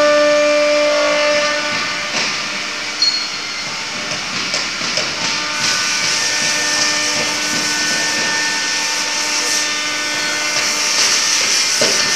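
CNC wood router spindle running with a steady whine while the bit cuts wood. A hissing cutting noise comes up from about halfway through.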